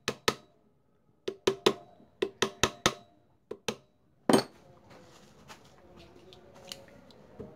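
A keyed gear being tapped onto its shaft in a motorcycle engine's open crankcase: about a dozen sharp metallic knocks in quick irregular succession, the loudest about four seconds in, as it is seated with its timing mark lined up with the mating gear's mark.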